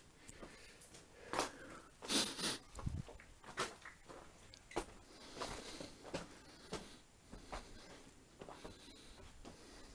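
Footsteps crunching and scuffing over loose rock rubble at an uneven pace, with a louder scrape about two seconds in, and breathing.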